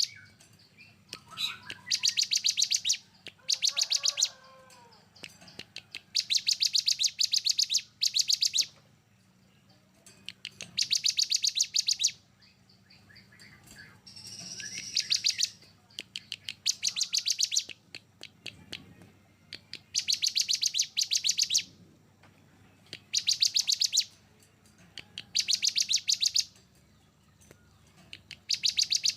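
Songbird singing in bursts of rapid, sharp repeated notes, each burst about a second long and coming every two or three seconds: the dense, harsh 'tembakan rapat dan kasar' song used in masteran recordings to tutor competition songbirds.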